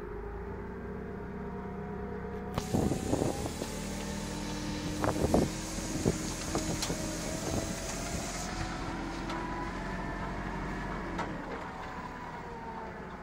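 Forklift truck running, with a whining note that rises and falls over its steady low drone. A hiss starts about two and a half seconds in and stops about eight and a half seconds in, and a few clunks and knocks come around three and five seconds in.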